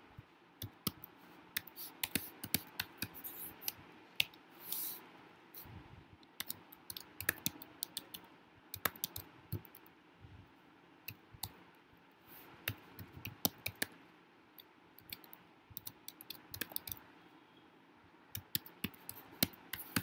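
Typing on a computer keyboard: irregular quick clusters of key clicks with short pauses between them, and a brief soft noise about five seconds in.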